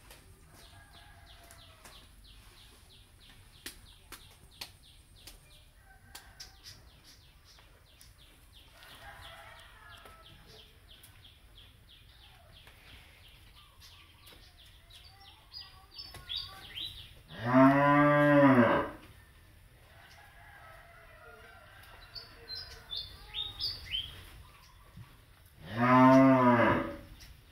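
Crossbred beef cattle mooing: two calls about eight seconds apart, each a little over a second long, rising then falling in pitch.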